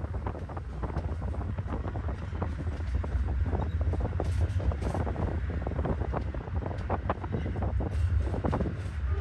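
Amtrak passenger cars rolling slowly past: steel wheels clicking and knocking on the rails over a steady low rumble, with wind buffeting the microphone.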